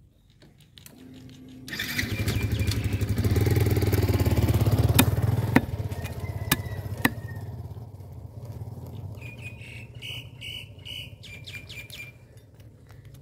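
A motor vehicle's engine comes up loud about two seconds in and slowly fades away over several seconds. Meanwhile a heavy cleaver chops through carp on a wooden block, giving a few sharp knocks.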